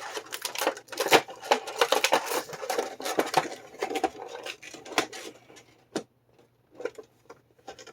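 Action-figure box with a clear plastic window being handled: plastic crinkling and clicking, dense for about five seconds, then a few single clicks.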